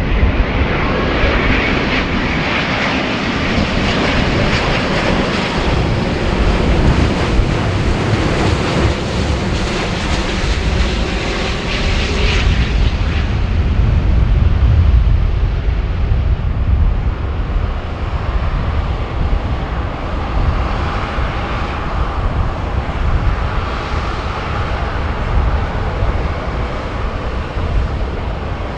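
Jet airliner engines passing close. A loud, hissing roar fills the first dozen seconds, then the high part dies away, leaving a low rumble as the jet moves off.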